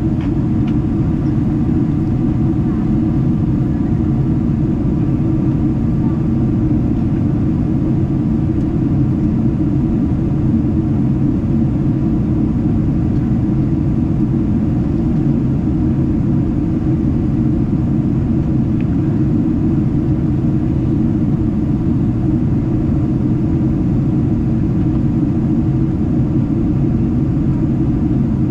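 Steady low rumble inside the cabin of a Boeing 777-300ER airliner during its descent: engine and airflow noise, even in level throughout.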